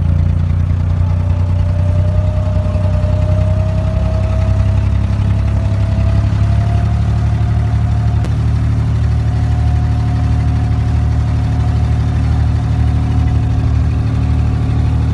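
Inboard diesel engine of an abra, a wooden water taxi, running steadily under way: a deep, even drone with a fainter whine that slowly rises in pitch over the first several seconds. A single sharp click about eight seconds in.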